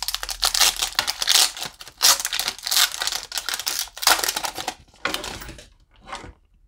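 Foil wrapper of a Pokémon booster pack being torn and pulled open by hand, a dense crackling crinkle for about four seconds that then thins out to a few last rustles. The pack is stiff and hard to open.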